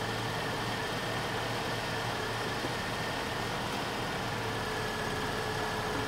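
1993 Ford Mustang's 2.3-litre four-cylinder engine idling steadily.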